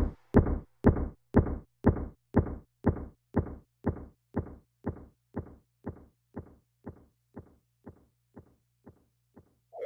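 A soundtrack pulse of low, dull thuds, about two a second, like a slow heartbeat, fading steadily away until it almost stops.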